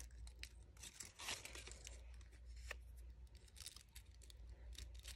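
Faint rustling and crinkling of a fringed paper strip being rolled by hand into a tight coil, with light scattered ticks of the paper. There is a slightly louder rustle about a second in, over a low steady hum.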